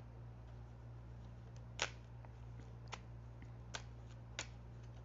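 A steady low hum with four sharp clicks over it in the last three seconds, the first of them the loudest.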